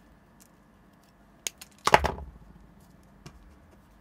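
Hand tools working a short length of hookup wire: a few light clicks, then a louder single clatter about two seconds in, with a brief ring-out.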